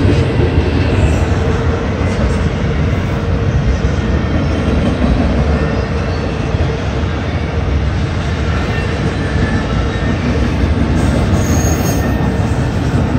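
Double-stack container well cars of a Norfolk Southern freight train rolling past close by: a loud, steady rumble of wheels on rail, with a thin steady wheel squeal on top.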